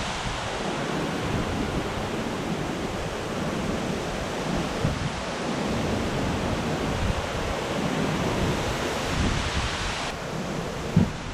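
Hurricane-force wind blowing steadily with rain, buffeting the microphone in gusts, with a brief low thump near the end.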